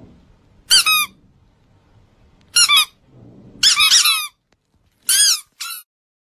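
Five short, high-pitched squeaky-toy squeaks, each rising then falling in pitch, with the fourth one longer than the others.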